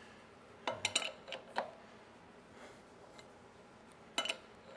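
Steel wrenches clinking against a harmonic balancer installer tool as they are shifted and refitted on its nut and stud, between turns that press the balancer onto a small-block Chevy crankshaft. About half a dozen quick metal clicks come about a second in, and a few more near the end.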